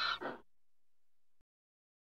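The end of a donkey's bray, a breathy call that stops about half a second in.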